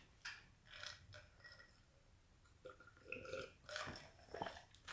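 Faint sounds of drinking from a clear plastic water bottle: swallows and light handling of the thin plastic, in short scattered bits, mostly in the second half.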